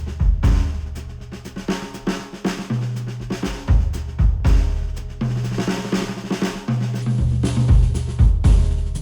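Instrumental music with a drum kit and deep bass notes that change every second or two, played back through headphones and picked up by microphones at the earcups.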